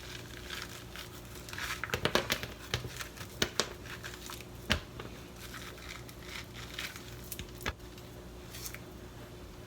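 Seeds and stringy fibres being scraped and torn out of a cut pumpkin, with irregular soft scrapes and sharp little clicks of the utensil against the flesh and rind, busiest a couple of seconds in.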